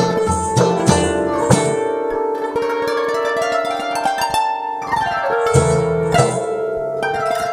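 Instrumental background music of plucked-string notes over a steady beat. The beat drops out about a second and a half in and comes back briefly around six seconds in.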